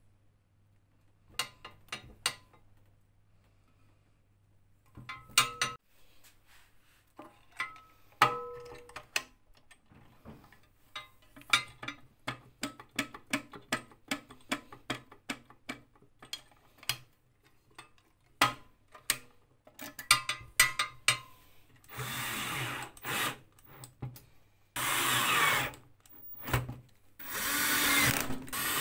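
Sharp clicks and knocks of metal parts being handled and fitted on a metal post box, a couple of them ringing briefly. In the last seven seconds a cordless drill runs in three short bursts against a black sheet-metal panel.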